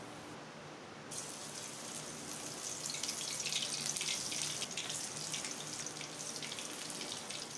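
Hot oil sizzling in a kadai as pakoras deep-fry. From about three seconds in it crackles harder as handfuls of green chilli batter are dropped into the oil.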